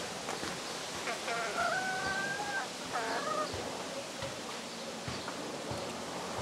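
Rooster crowing: one long held call lasting over a second, then a shorter call right after it, over a steady background hiss.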